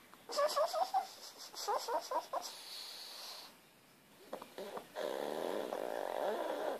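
A sleeping pug dreaming: two short bursts of high, wavering whimpers in the first few seconds, then steady snoring from about five seconds in.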